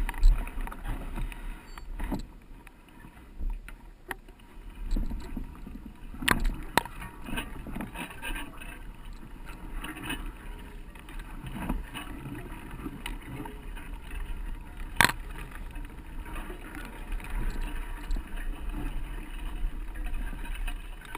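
Mountain bike riding over a dirt trail: a steady low rumble of wind and tyres on the camera mic, with scattered clicks and knocks from the bike, one sharp knock standing out about two-thirds of the way through.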